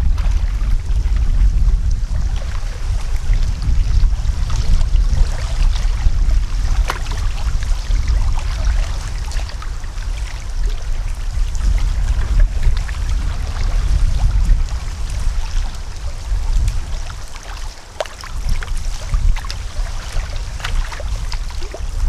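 Wind buffeting the microphone in a gusty rumble, over small waves lapping and splashing at a lake's edge. The wind dips briefly late on.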